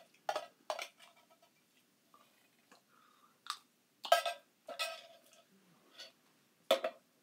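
A spoon scraping and clicking against the inside of a metal can of crushed pineapple: about seven short, sharp strokes at uneven intervals, the loudest about four seconds in and near the end.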